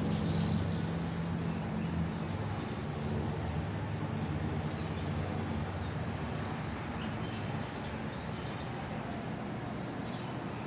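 Panasonic fully automatic washing machine running: a steady rushing noise, with a low hum in the first few seconds that fades, and a slight drop in level about seven and a half seconds in.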